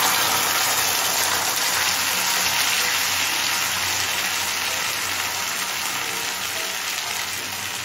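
Wet cashew and melon-seed paste sizzling in hot mustard oil in a frying pan, a loud steady hiss that slowly dies down.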